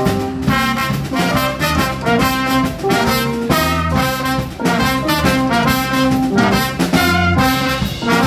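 Live horn section of two trumpets and a trombone playing a rhythmic riff together over the band's electric guitar, bass and drums, with no singing.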